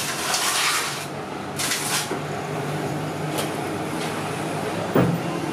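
Hands crumbling and mixing a dry, crumbly filling on a table, giving two bursts of rustling in the first two seconds, then a click and a thump near the end, over a steady low hum.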